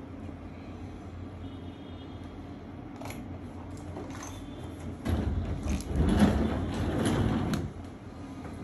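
A steady low room hum with a few faint clicks. About five seconds in, a louder noisy rumble close to the microphone lasts about two and a half seconds, then stops fairly sharply.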